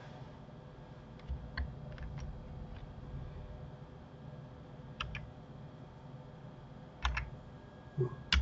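Scattered clicks of a computer keyboard and mouse, a few at a time with pauses between, over a low steady hum.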